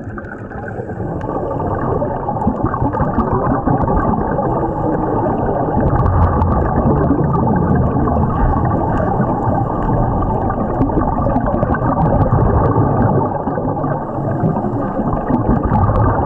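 Muffled underwater rushing and gurgling of scuba regulator exhaust bubbles as the divers breathe, picked up by a camera underwater.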